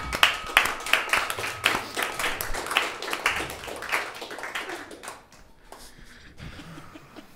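A small crowd clapping by hand, uneven claps that thin out and die away about five seconds in.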